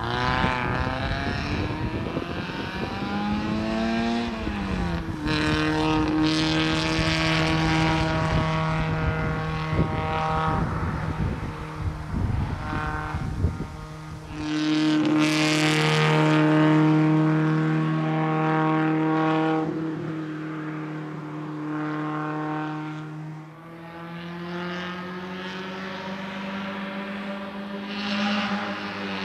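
Fiat 127 race car's small four-cylinder engine revving hard at race pace: the note climbs, drops at a gear change about four seconds in, then holds a steady high pitch, and falls away near the end as the driver lifts off.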